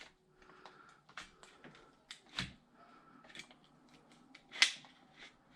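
Scattered light clicks and knocks of parts being handled and pulled off an airsoft rifle during disassembly, with two sharper knocks, one about halfway and one near the end.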